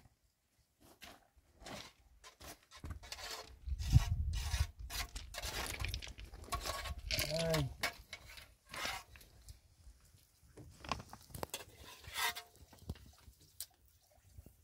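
Irregular rubbing, scraping and knocking of objects being handled, with a heavier thump about four seconds in and a short pitched call a few seconds later.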